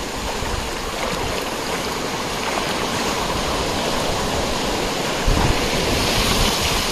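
Sea surf washing in the shallows, a steady rush of water that builds slowly and swells near the end, with a low rumble from about five seconds in.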